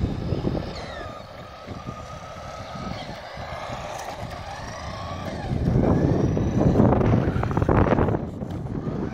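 The stock electric motor and drivetrain of a Nikko Dictator 4WD RC buggy whining, its pitch gliding up and down with the throttle as the buggy runs back up close. For the last few seconds a louder rough rushing noise takes over.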